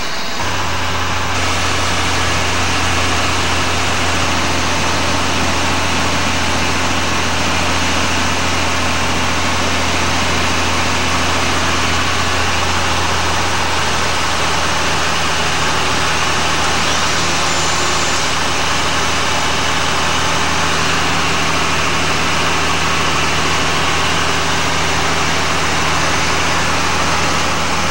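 Small aircraft's piston engine and propeller running steadily, heard from inside the cockpit as a loud, even drone with a low hum and a wide rushing hiss. The engine note changes slightly about halfway through.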